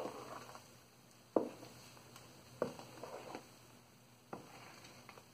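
Thick dosa batter being mixed by hand in a plastic bowl: four soft wet squelching strokes, about one every second and a half.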